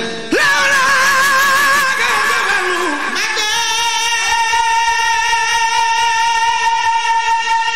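A man chanting an Arabic Sufi religious poem (khassida) solo into a microphone. The first few seconds are wavering, ornamented notes; about three seconds in he settles on one long, high held note that lasts over four seconds.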